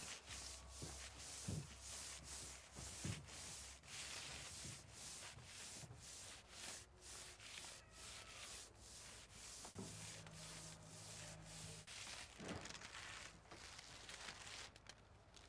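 Hand woodblock printing: paper being rubbed down onto an inked, carved wooden scripture block in quick, even strokes, about two a second, faint, with a few soft knocks of the work.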